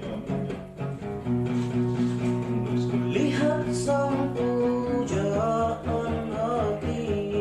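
Music: a song with guitar accompaniment and a singing voice, held notes with some sliding pitch.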